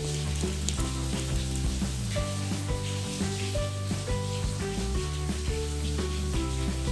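Background music with a melody moving over held low notes, over a constant hiss with faint ticks.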